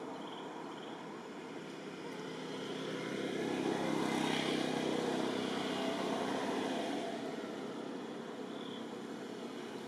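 A motor vehicle passing by: its engine and road noise grow louder from about two and a half seconds in, peak around four to five seconds, then fade away.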